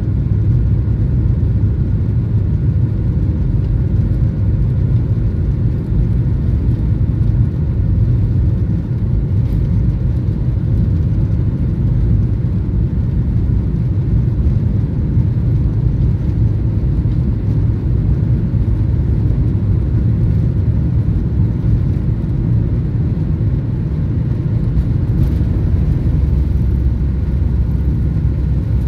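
Boeing 737-800's CFM56 turbofan engines at takeoff thrust during the takeoff roll, heard from inside the cabin: a loud, steady low rumble of engines and runway, with a faint steady whine above it.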